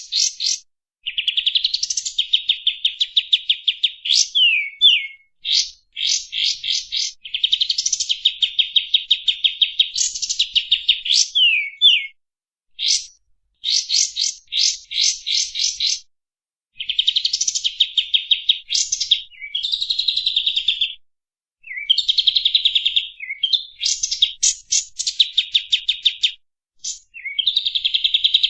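Kapas tembak songbird singing long rapid-fire phrases of fast repeated high notes, with quick falling slurs. The phrases come in runs of a few seconds separated by short pauses.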